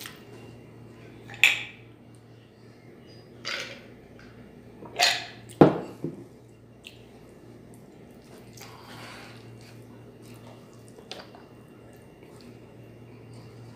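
Close-miked eating sounds from a man eating rice and sardines by hand: a handful of short, loud, wet mouth sounds a second or more apart, the loudest about five and a half seconds in, over a steady low hum.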